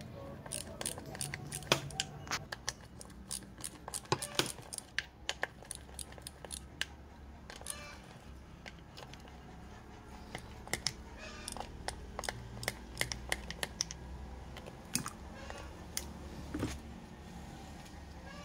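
Small socket ratchet clicking in short runs as it backs out the cover bolts of a CNG regulator, with loose bolts and metal parts tapping and clinking.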